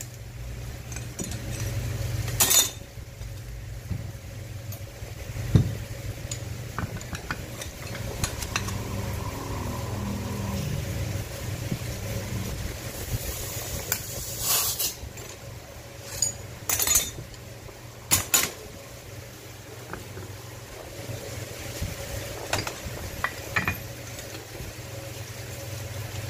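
Metal brake parts and hand tools clinking and knocking during caliper work, with a few short hissing bursts over a steady low workshop hum.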